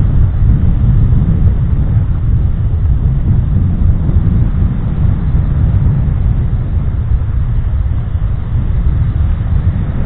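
Wind buffeting the microphone while moving along the beach: a loud, rough, low rumble that keeps flickering in level.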